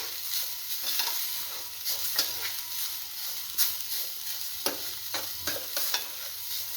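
Freshly grated coconut being stirred and roasted in hot ghee in a pan, sizzling steadily, with the stirring utensil scraping the pan in short irregular strokes.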